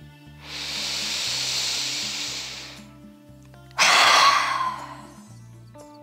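A woman's deep breathing in a yoga breath exercise: a long, soft inhale through the nose, then about four seconds in a sudden, forceful exhale through the mouth, with the navel drawn in. The exhale is the loudest sound and falls away over about a second.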